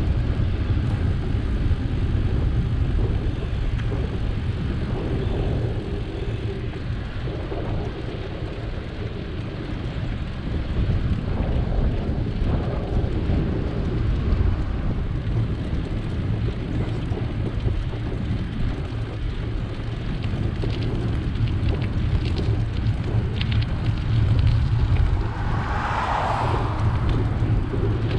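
Wind buffeting the microphone with tyre noise from a bicycle in motion: a steady low rumble, a few light clicks in the second half, and a short brighter rush of noise near the end.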